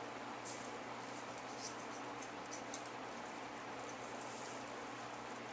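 Scissors snipping through long faux fur: about half a dozen short, crisp snips at irregular intervals, over a faint steady hum.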